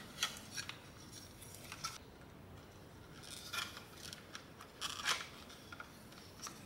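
Hard plastic parts of a Dyson V11 cordless vacuum's handle and motor/PCB housing clicking and scraping against each other as they are fitted together by hand. A few faint, short clicks and scrapes, grouped about halfway through and again about three-quarters of the way.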